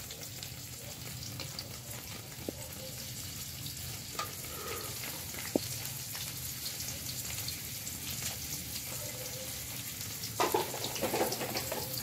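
Eggs with mushrooms and tomato frying and sizzling in a metal wok over a gas burner as they are stirred with chopsticks, with a few sharp clicks and busier knocking near the end.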